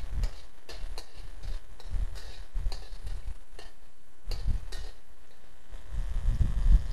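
Metal wok spatula tapping and scraping against a steel wok while minced garlic is stir-fried in hot oil: irregular clinks, a few a second. A low rumble rises near the end.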